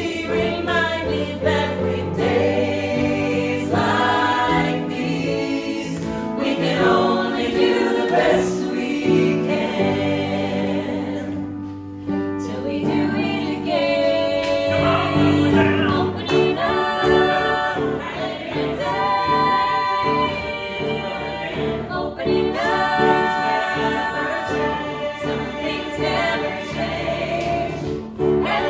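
Mixed ensemble of men's and women's voices singing a musical-theatre number together in harmony, with a brief dip about twelve seconds in.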